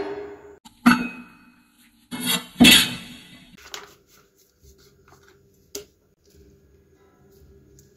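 A ceramic plate set down on a countertop: a sharp clink with a brief ringing about a second in, then a louder clatter of the plate around two to three seconds in. After that come faint soft handling sounds and a single small tick as slices of pickled ginger are laid on the plate.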